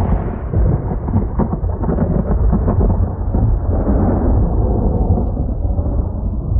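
A loud, deep rolling rumble with crackling through it, like thunder. Its higher parts slowly die away.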